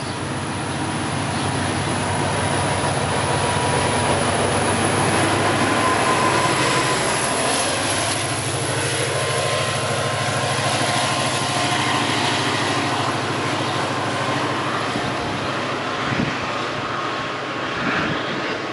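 MBTA commuter train departing past the platform. Bilevel coaches roll by with steady wheel-on-rail noise, then the diesel locomotive pushing at the rear goes past with its engine drone and pulls away.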